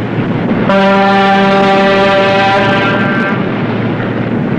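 Ship's whistle sounding one long, steady blast that starts a little under a second in and fades out about two and a half seconds later, over a steady rushing background of engine and sea noise.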